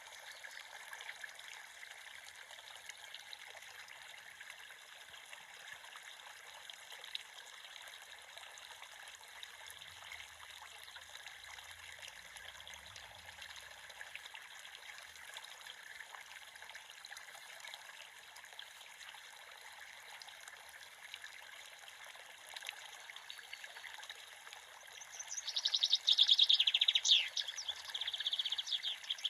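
Creek water trickling with a steady, even rush. About 25 seconds in, a bird starts calling with quick, sliding chirps that are louder than the water.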